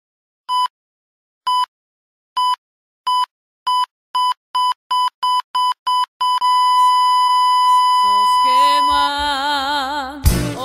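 Heart-monitor beep sound effect, about a dozen beeps coming faster and faster until they run into one continuous flatline tone, the signal that the heart has stopped. A wavering voice-like tone comes in over it near the end, and music begins just before the end.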